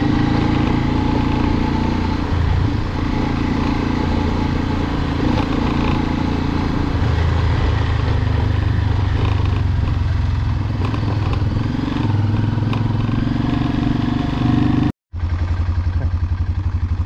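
Honda Transalp 600's V-twin engine running steadily while the motorcycle is ridden, with an even rushing noise above the engine note. It breaks off for an instant near the end, then carries on with a more even pulse.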